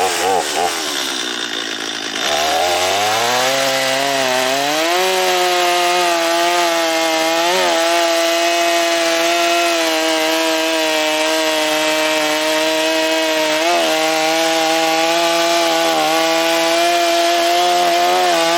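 Stihl MS250 two-stroke chainsaw, freshly cold-started, dropping back to a low speed, then revving up about two seconds in and running at full throttle through a cut in wood with a steady pitch and a couple of brief dips under load.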